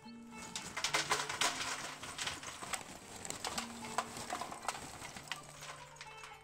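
Lumps of hardwood charcoal poured from a paper bag, clattering and knocking into a steel portable grill box, loudest about a second in. Soft background music with held notes runs underneath.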